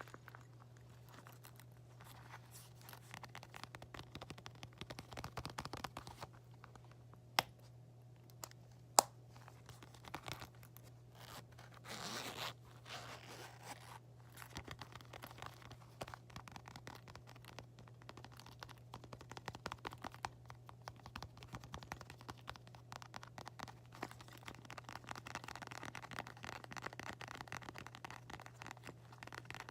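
Close-miked scratching and tapping on small objects: a continuous run of fine scratches and clicks, with two sharp, loud taps about seven and nine seconds in and a brief scrape around twelve seconds.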